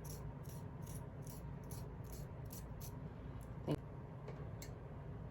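Quick, regular strokes of a brush through a wig's hair, about two or three a second, stopping about three seconds in. Then comes a single sharp click.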